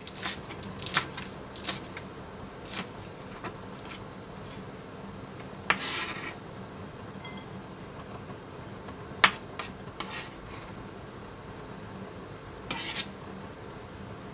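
Kitchen knife chopping spring onions on a wooden cutting board, about half a dozen separate chops in the first four seconds. Then a few scattered knocks and short scrapes as the knife gathers the cut pieces off the board.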